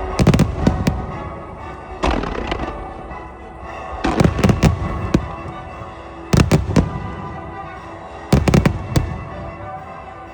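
Aerial fireworks shells bursting in five clusters of sharp bangs, roughly every two seconds, over music played with the display.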